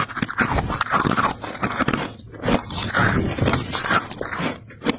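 Thick built-up freezer frost being pressed and crushed, a run of squeaky crunches with brighter squeaks about a second in, three seconds in and four seconds in.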